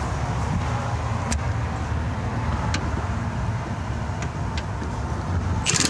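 Steady low rumble with a few light clicks as a Milwaukee M18 cordless impact wrench with a socket on an extension is set onto a bolt. Near the end the impact wrench starts its rapid hammering rattle, backing the bolt out.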